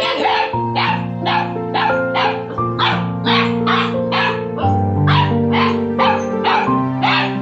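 A dog barking rapidly and repeatedly, about two to three short, sharp barks a second, over background music.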